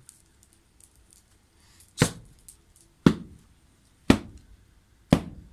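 Four sharp, loud blows about a second apart, struck by a man swinging his arm down hard, starting about two seconds in.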